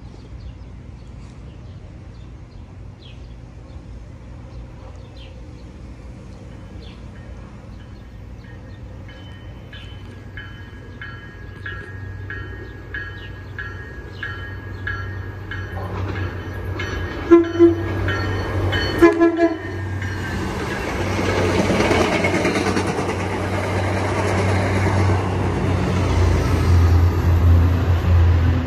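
MBTA commuter train's diesel locomotive approaching: a bell ringing about twice a second, two short horn blasts, then the diesel engine and wheels on the rails growing to a loud rumble as the train nears.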